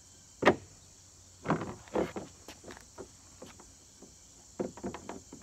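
Irregular clicks and knocks of a stainless steel bolt and bracket hardware being handled and worked into a hole in a kayak hull, about a dozen sharp taps spread unevenly.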